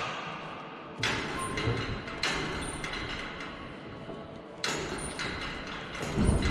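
Knocks and clanks of heavy metal parts being handled, three sharp ones each ringing briefly, then a heavier low thud near the end.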